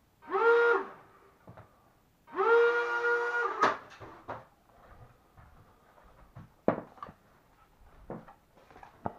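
The twin tiny propeller motors of a lightweight RC plane, blipped briefly and then run at full throttle with a steady whine for about a second and a half before cutting off suddenly. The two motors can be heard running at slightly different pitches, as in differential-thrust steering. A few light clicks and knocks follow.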